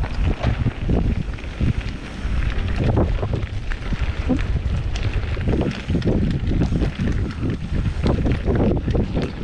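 Wind buffeting the microphone over a mountain bike riding fast down a dirt trail, with tyre rumble and many short knocks and rattles as the bike runs over bumps.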